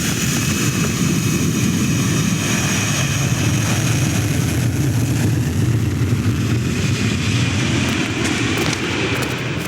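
Jet airliner engines running at high power, a steady deep rumble with a high whine over it, easing off slightly near the end.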